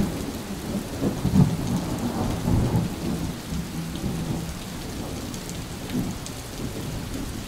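Rain falling steadily with low, rolling rumbles of thunder, a thunderstorm sound laid under the closing card.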